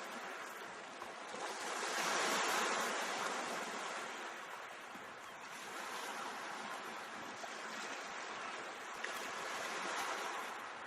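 Sea waves washing onto the shore in a steady rush of surf. A larger swell breaks about two seconds in, and another comes near the end.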